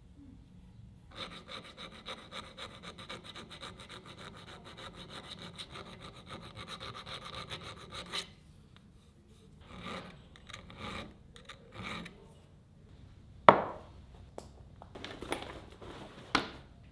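Hand file scraping on knife steel: a long run of fast, even rasping, then three short separate strokes, then a couple of sharp knocks as the work is handled.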